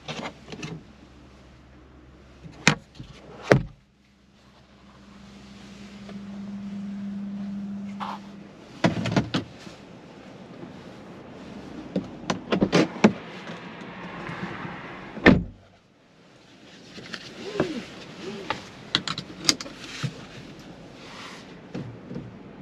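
Polestar 2 cabin fittings being worked by hand: sharp clicks and knocks from the sun visor and interior trim, and an electric power-window motor humming steadily for about four seconds while outside noise swells. Later come more clicks and a loud thunk, after which the cabin goes much quieter.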